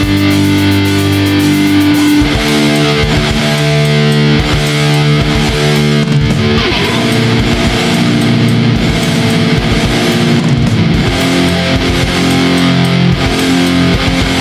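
Heavy metal music: distorted electric guitar chords ring out, with a beat of low strikes joining about two seconds in.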